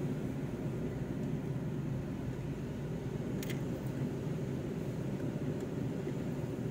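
Steady low rumble of engine and road noise inside a moving vehicle's cab, with a faint brief click about halfway through.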